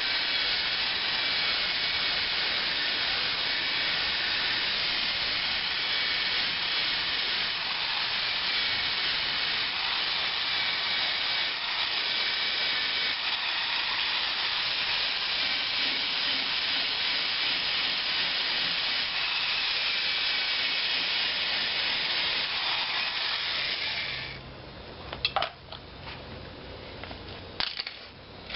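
Sanding disc on an electric drill grinding paint off a car's sheet-metal body panel down to bare metal: a steady grinding with a faint motor whine. It stops about 24 seconds in, followed by a few light knocks and clicks.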